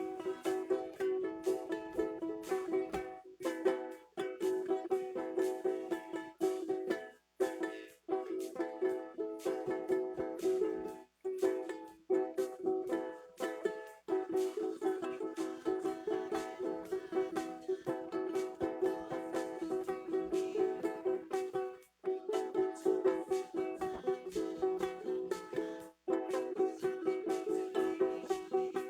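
Acoustic guitar strummed rapidly in a steady, repeating chord pattern, breaking off briefly several times.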